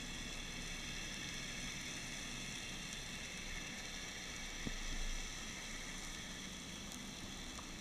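Faint, steady underwater hiss picked up through a diving camera's housing, with a soft knock about five seconds in.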